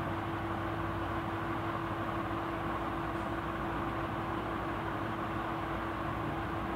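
A steady hum with a constant low tone over an even hiss, unchanging throughout.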